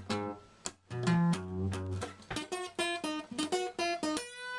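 Acoustic guitar strummed hard: chords with low bass notes, then a quick run of short, choppy strums, and a chord left ringing near the end.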